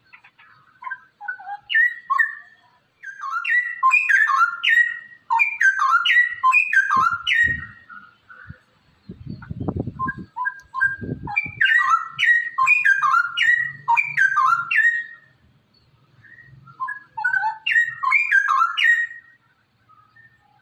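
Straw-headed bulbul (cucak rowo) singing in four bursts of quick up-and-down whistled notes, with short pauses between them. A brief low rumble comes about halfway through.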